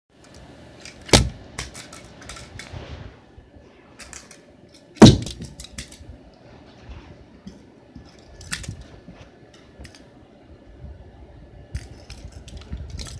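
Plastic Lego bricks knocking and clattering. A sharp knock about a second in and a louder one about five seconds in are each followed by light rattling of small pieces. Softer clicks of bricks being handled come near the end.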